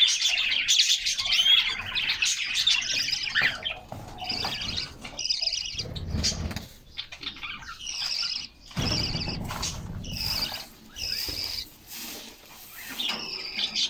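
Canaries singing in their cage: a dense, high warbling run for the first few seconds, then shorter chirps and phrases. Low fluttering rustles about six and nine seconds in, from wings or movement close to the microphone.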